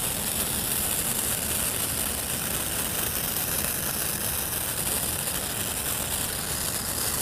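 Small 'Star Drops' ground fountain firework spraying sparks with a steady hiss.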